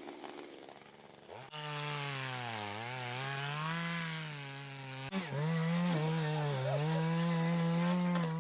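Two-stroke chainsaw: it revs up about a second and a half in, then runs at high speed, its pitch sagging and recovering as it cuts through wood.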